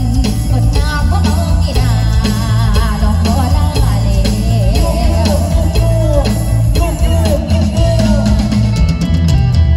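Live Isan lam tang wai music from a band with drum kit and a heavy, pulsing bass, under a woman's singing voice whose long lines waver and bend in pitch.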